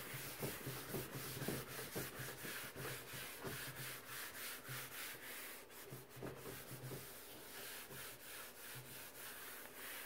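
Faint rubbing of a wad of paper towel across a craft mat in repeated short strokes, wiping up sprayed Windex and leftover dye ink.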